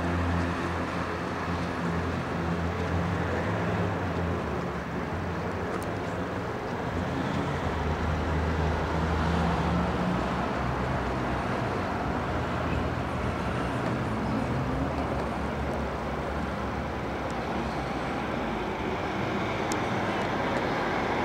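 Steady town-centre traffic noise, with a motor vehicle's low engine hum in the first half that fades out about ten seconds in.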